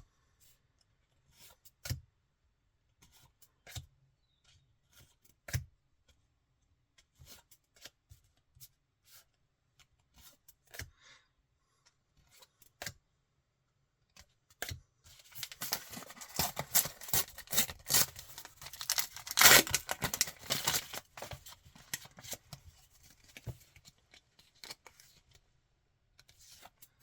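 Sticker packet wrappers being handled and torn open: scattered crinkles and taps at first, then about halfway through a dense stretch of crinkling and tearing that is loudest for a few seconds and tails off near the end.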